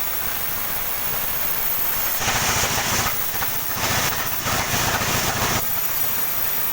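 Sawmill running with a steady hum, its saw cutting through a coconut palm log in two louder, hissing stretches, about two seconds in and again about four seconds in.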